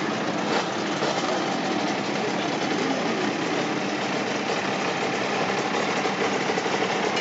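Several two-stroke motorcycles, Kawasaki 750 H2 triples among them, idling together in a steady mixed engine sound.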